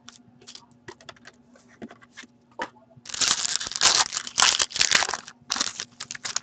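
Soft clicks of trading cards being flicked through by hand, then about three seconds in a loud stretch of crinkling and tearing as a card wrapper is torn open and pulled apart, with a few more crinkles near the end.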